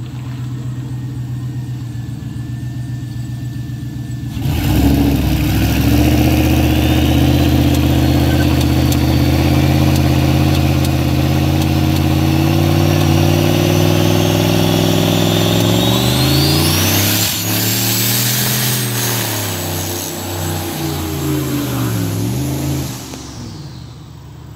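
Single-turbo 5.3-litre LS V8 idling, then revved hard about four seconds in and held at high revs during a burnout, with a turbo whistle climbing in pitch. The engine's pitch then swings up and down as the car pulls away, fading near the end. It makes a popping that is called not good.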